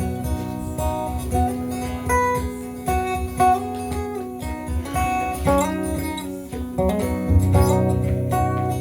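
Live band playing the instrumental opening of a song, led by strummed and picked acoustic guitar over a steady bass pulse.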